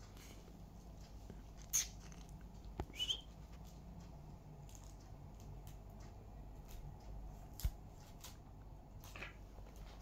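Pet budgerigars giving a couple of short, quiet chirps, with a few sharp isolated clicks, over a low steady hum.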